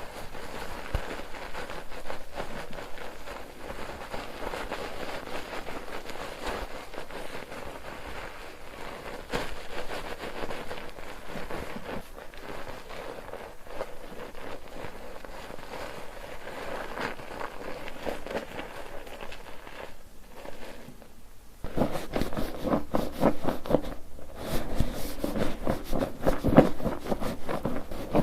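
Bar soap being worked into lather in a soap foaming net: a steady wet crackle of bubbles and squishing. About two-thirds of the way in it turns louder, with quick repeated squelching squeezes.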